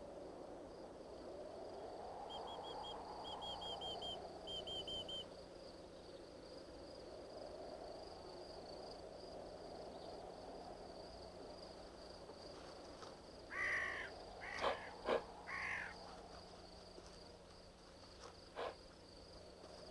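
Faint outdoor wildlife ambience. Three quick runs of small high chirps come over a steady high whine, then a few short, louder animal calls with sharp clicks about two-thirds of the way through, and one more click near the end.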